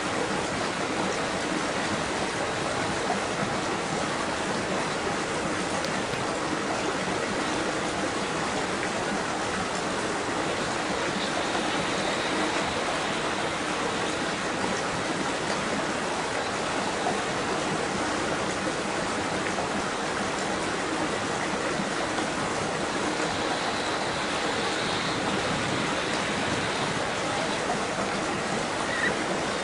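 Flowing water rushing steadily and evenly.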